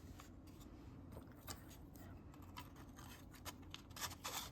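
Faint scraping and light clicks of laser-cut wooden number pieces sliding into the slots in the back of a wooden book tracker. There are several short scrapes, with a longer, louder one near the end.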